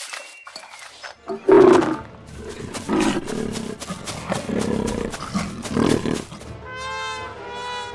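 A tiger roaring and growling in several loud outbursts, the loudest about a second and a half in, then a cow mooing near the end.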